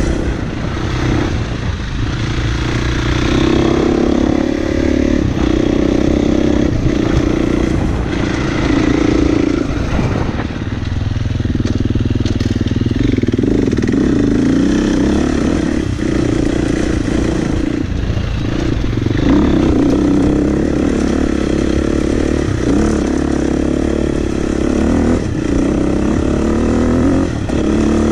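Husqvarna FX350 single-cylinder four-stroke dirt bike engine running under way on a trail, its pitch rising and falling over and over as the throttle is opened and rolled off.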